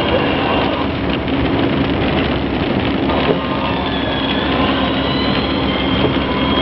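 Steady road noise of a vehicle driving along a highway, heard from inside: constant engine hum and tyre noise with faint high whistling.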